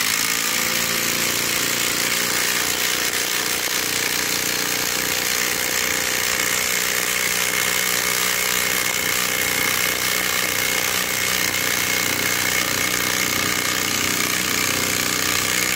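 A DeWalt-branded 20 V cordless impact driver hammering steadily as it drives a long wood screw all the way into a wooden block. It stops abruptly at the end as the screw seats.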